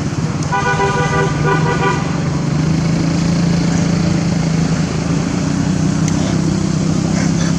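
Road traffic: a vehicle horn sounds for about a second and a half near the start, over the steady drone of a motor vehicle's engine, which grows stronger partway through.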